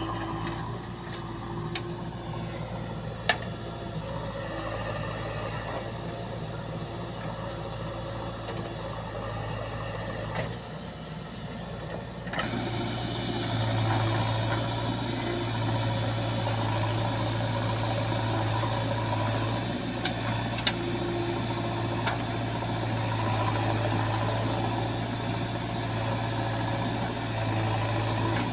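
JCB 3DX backhoe loader's diesel engine running steadily while it works, turning abruptly louder about twelve seconds in. A few sharp knocks stand out over the engine.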